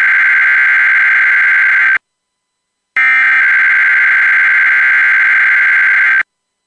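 Emergency Alert System SAME digital data bursts, a harsh buzzing screech. One burst cuts off about two seconds in, and after a second of silence another runs for about three seconds.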